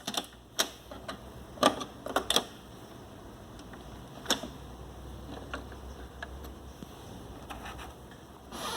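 Scattered sharp clicks and light knocks, about a dozen spread unevenly, from the keys and body of a Sony CFS-1035S radio-cassette player being handled after its music stops, over a faint low hum.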